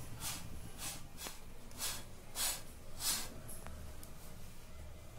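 Soft, rhythmic swishing of a folded cotton cloth being pressed and dabbed over a roti on a hot non-stick tawa, about two strokes a second, over a faint low hum.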